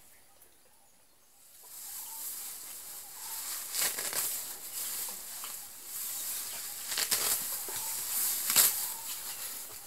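Rustling and ripping of grass as a young Sri Lankan elephant pulls it up with its trunk to feed. It starts after a quiet second or so, with a few louder rips near the middle and toward the end.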